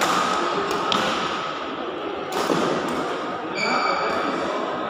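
Badminton rally: three sharp racket strikes on the shuttlecock, about a second apart, in a reverberant hall, then a brief high squeak of a shoe on the court floor about three and a half seconds in.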